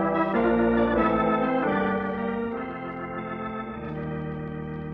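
Organ music bridge marking a scene change in a radio drama: a run of sustained chords, loudest over the first two seconds, then quieter and settling on a long held chord near the end.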